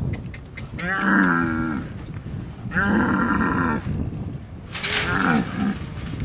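Dromedary camel calling: three drawn-out calls of about a second each, with a burst of breathy noise around the third.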